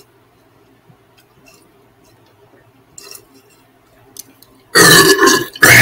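A person chugging a drink from a plastic cup: faint gulps and swallowing clicks, then near the end two loud, breathy gasps for air as the chug finishes.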